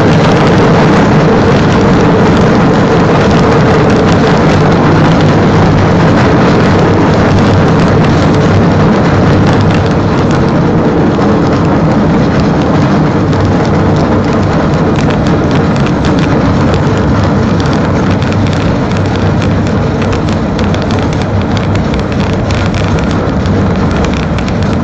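Steady loud rumble of a small rail vehicle rolling along old track, with a low hum under a dense clatter of the wheels on the rails. It eases slightly about ten seconds in.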